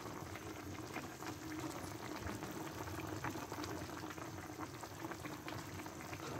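Pot of chicken-and-tomato broth with bok choy boiling: a steady, fine bubbling and crackle of the simmering soup.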